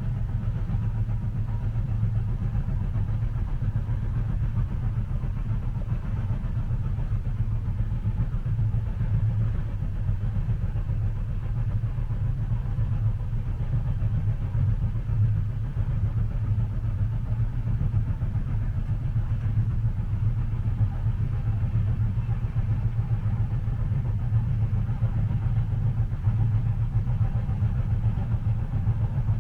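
Steady low rumble of a train heard from inside a passenger cabin, even and unbroken, with no distinct clicks or rail-joint beats standing out.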